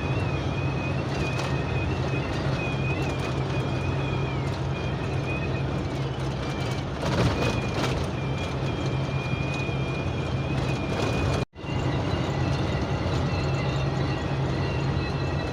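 Wind whistle inside a moving vehicle's cab: a thin, steady high whistle, wavering a little in pitch, over the low drone of engine and road noise at highway speed. It seems to come from the front, along the windshield. The sound cuts out for an instant near the end.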